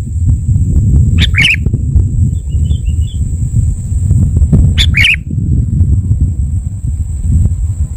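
Sooty-headed bulbul calls: two short, bright calls, about a second in and again near five seconds, with a few faint chirps between. Under them runs a constant low rumble and a thin, steady high whine.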